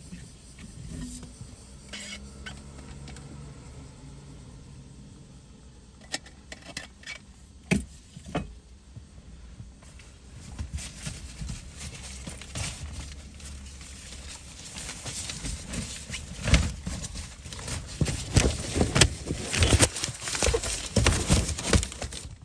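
Street traffic: a truck's engine running low at the junction and cars going by, then dense crackling and tapping that grows louder in the second half.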